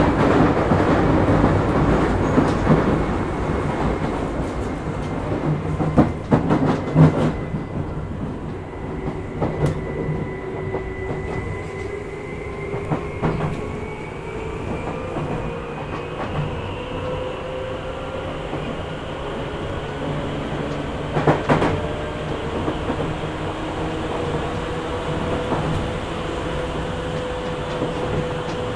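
Tokyu 8500 series electric train with Hitachi traction motors, heard from inside the car while running. A motor whine rises in pitch through the second half over the rumble of the wheels. Wheels click over rail joints about six seconds in and again about two-thirds of the way through.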